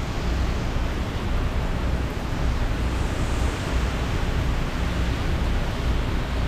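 Hurricane wind and heavy rain making a steady rushing noise, with gusts buffeting the microphone as a fluctuating low rumble.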